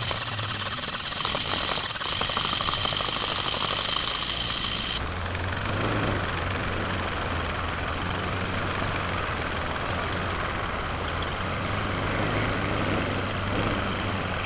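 Chevy Aveo four-cylinder engine, its crankcase filled with water instead of oil, cranking on the starter for about five seconds, then catching and running at low revs with a steady low hum. It will not rev above about 500 RPM even with the pedal floored, a sign the owner puts down to lost compression, fouled spark plugs or worn-out rings.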